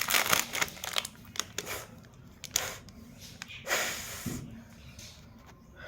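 Someone eating aloo bhujiya namkeen close to the microphone: irregular crunching and crinkling, with a few louder bursts, the loudest near the end.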